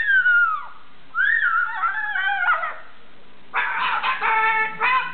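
Cockatoo calling in three separate squawking, warbling calls that slide up and down in pitch: one falling call at the start, a wavering one about a second in, and a longer, more even one near the end.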